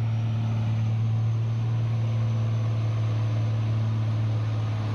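A steady low machine hum, even in pitch and level.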